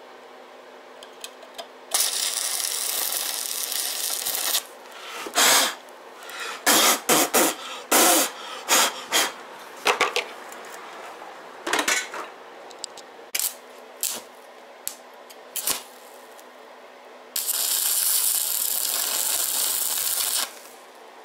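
Arc welding on a motorcycle's steel rear frame: a steady crackle and hiss of the arc for about two and a half seconds, then a run of short sharp bursts, then a second steady weld of about three seconds near the end.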